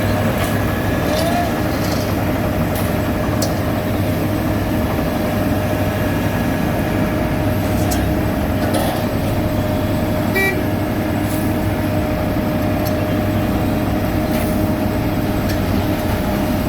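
Heavy diesel construction machinery running steadily, with a low drone, a thin steady whine held throughout, and a few light clanks.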